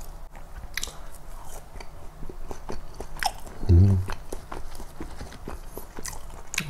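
A man chewing McDonald's french fries close to the microphone, with many small crisp clicks of biting and chewing. About four seconds in he gives a short, pleased hum, "mm".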